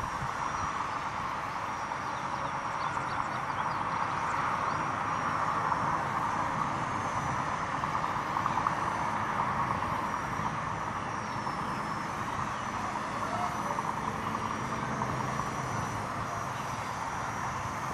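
Walkera 4#3B micro RC helicopter in flight, its brushless motor and rotor giving a steady buzz with a thin high whine that wavers slightly in pitch. Strong wind rumbles on the microphone throughout.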